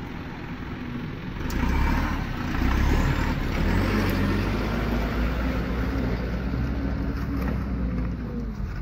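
Cargo truck's diesel engine running as the truck drives slowly past on a dirt road, getting louder about a second and a half in and easing off near the end.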